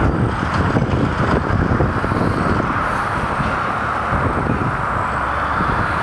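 Steady noise of distant highway traffic, with wind gusting on the microphone.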